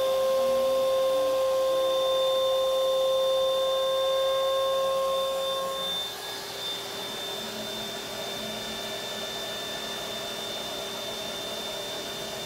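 Trim router spindle on a home-built CNC machine whining steadily alongside a shop vacuum running for dust collection. About halfway through, the router's whine stops and the level drops, leaving the vacuum running on its own.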